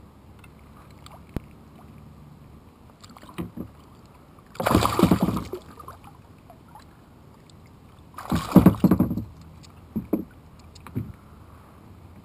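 A hooked fish splashing at the surface beside a kayak in two bursts of about a second each, one about four and a half seconds in and one about eight seconds in, with a few light knocks around them.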